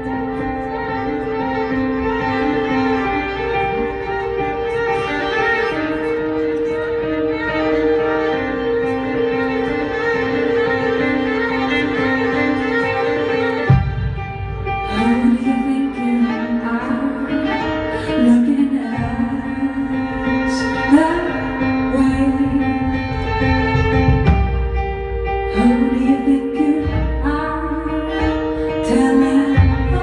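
Live indie pop music: violin and keyboard playing long held notes. About halfway through, a deep bass part comes in and a woman sings.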